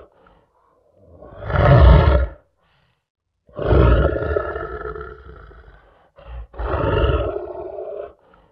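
A lion roaring in separate deep calls. There is a short swelling roar about a second in, then a long roar that fades away, then a brief grunt and another roar near the end.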